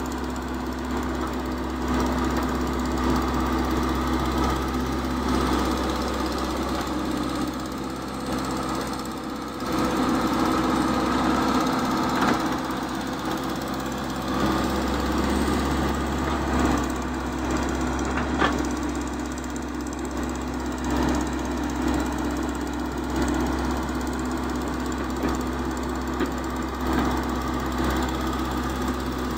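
Diesel engine of a Caterpillar E120B hydraulic excavator running steadily as it digs and swings soil. The level swells and eases with the load, dips briefly about a third of the way through, and a couple of brief knocks come later.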